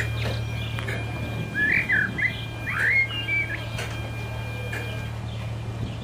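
Small birds chirping and singing in short bursts of rising and falling notes, over a steady low hum.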